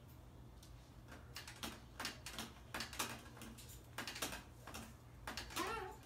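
Bare-eyed cockatoo knocking on the top of its cage: a run of sharp, irregular knocks, about three or four a second, starting about a second in.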